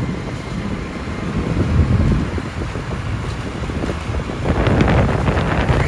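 Motorcycle running as it rides up close, mixed with heavy wind rumble on the microphone; the sound swells about four and a half seconds in.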